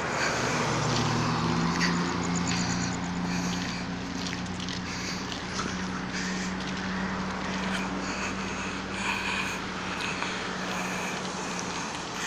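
Car driving along a city road: steady engine and road noise, with a low hum that rises in pitch about a second in and then holds steady.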